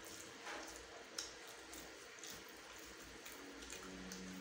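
Faint wet eating sounds: fingers squishing through saucy instant noodles and chewing, with scattered small smacks and clicks and one sharper smack about a second in.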